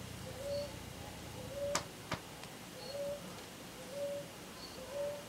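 A bird cooing in the background: short rising notes repeated about once a second. Two sharp clicks come close together near the middle.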